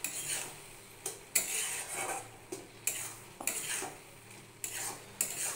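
A spatula scraping and knocking around a kadai as a thick mung dal tarka is stirred, in quick repeated strokes about every half second to a second. The dal is being cooked down to thicken it.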